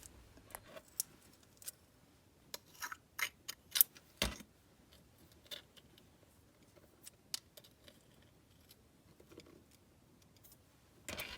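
Scattered light clicks and taps of small plastic slime toppings and charms being handled and set in place, with a cluster of clicks around three to four seconds in and one sharper knock about four seconds in.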